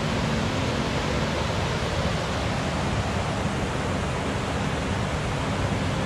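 Steady rushing of a river pouring over a broad waterfall of stepped rock ledges, an even, unbroken wash of water noise.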